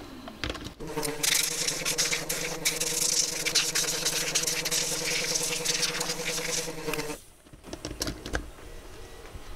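An air compressor runs with a steady hum while compressed air hisses from a blow nozzle onto a turntable's circuit board. Both start about a second in and cut off together suddenly about seven seconds in.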